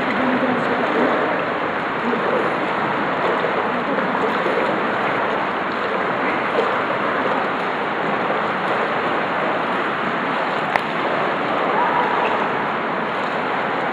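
Indoor swimming pool ambience: a steady rush of moving, splashing water around swimmers in the pool. A single sharp click sounds late on.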